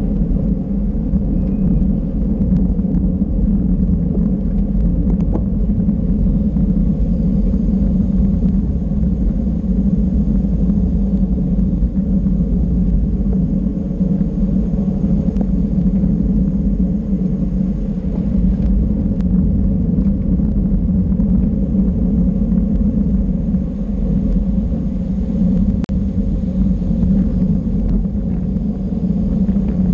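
Steady wind and road rumble on a cyclist's camera microphone while riding at speed, unbroken, with a faint click now and then.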